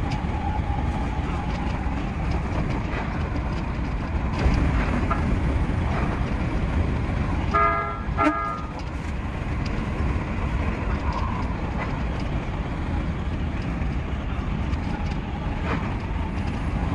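Odakyu 5000 series electric train running on the line, its steady rumble heard from the driver's cab, with a short horn toot about eight seconds in.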